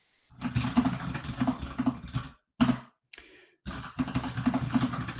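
Rapid typing on a computer keyboard: dense runs of keystrokes, broken by a short pause near the middle with a couple of single key presses.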